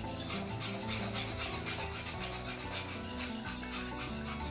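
A utensil stirring a roux and beef broth in a saucepan, scraping the pot bottom in quick, regular strokes, several a second, as the gravy is made. Background music plays underneath.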